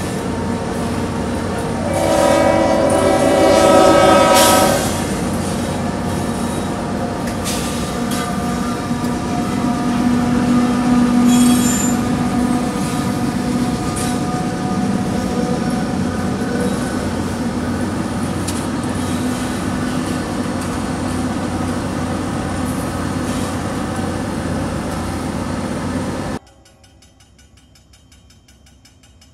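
A diesel freight train passing a grade crossing: the lead EMD SD50 locomotive sounds its horn for about three seconds, then the locomotives and coal cars roll past with a steady heavy rail noise, and a brief high-pitched squeal comes about eleven seconds in. The sound cuts off suddenly near the end, leaving faint background.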